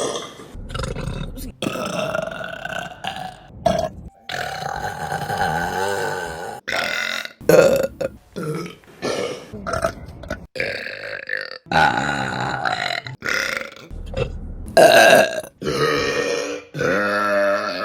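Women burping, one burp after another with abrupt cuts between them; some are short, others long and drawn out with a clear pitch.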